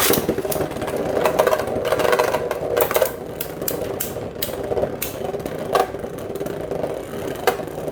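Two 3D-printed Beyblades spinning in a stadium just after launch, making a steady whir with sharp clacks where they collide. The whir is loudest in the first few seconds, then eases a little as they slow.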